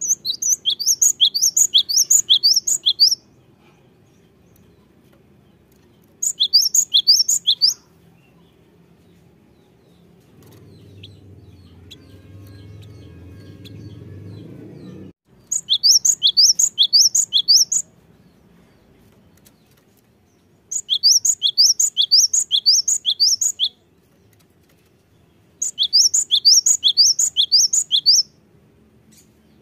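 Cinereous tit (gelatik batu) singing: five bursts of a rapid, repeated high-pitched phrase, each burst two to three seconds long, with pauses between. During the middle pause a faint low rumble rises and cuts off suddenly.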